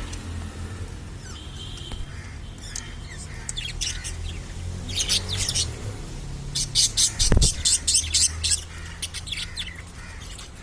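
Budgerigars chirping in scattered calls, then a quick run of sharp chirps about two-thirds of the way through, over a steady low hum.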